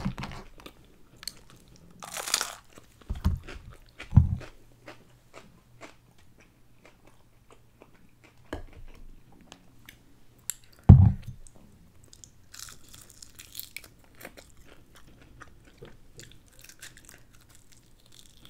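Close-up crunchy bites and chewing of crispy fried chicken, with scattered crackles and a few dull thumps, the loudest about eleven seconds in.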